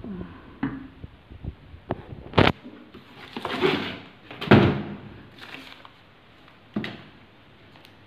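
A fabric dust bag rustling and swishing as it is handled around a motorcycle helmet, with a sharp knock about two and a half seconds in and another near the end.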